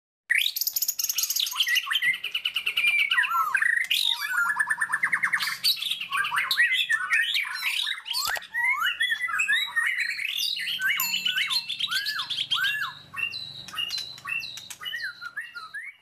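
A small songbird singing a fast, varied song of rapid trills, chirps and slurred whistled notes, ending in a run of repeated hooked notes before it fades out.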